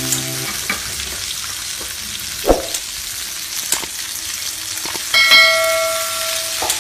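Pork belly slices sizzling as they fry in a stainless steel skillet, a steady hiss of spitting fat. A few sharp clicks come through, and about five seconds in a bell-like chime rings for a second and a half.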